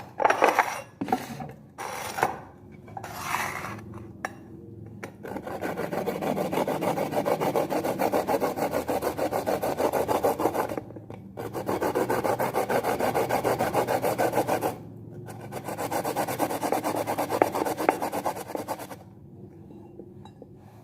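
A few knocks in the first seconds, then a piece of peeled fresh ginger rubbed fast up and down on a hand grater. The rasping scrape comes in three bouts with short pauses between them.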